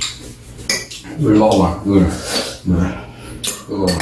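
Metal spoon and chopsticks clinking and scraping against bowls and a large metal tray while eating, with a person's voice in between the clinks.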